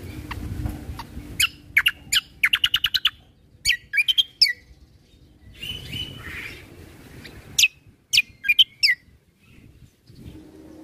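Kecial kombo (cucak kombo) songbird singing loud bursts of sharp chirps that sweep downward, with a fast run of repeated notes about two seconds in and another burst near the end.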